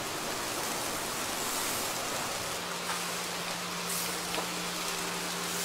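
Steady sizzling hiss of whole chickens roasting on rotisserie spits over charcoal, with a few faint clicks. A low steady hum comes in about halfway through.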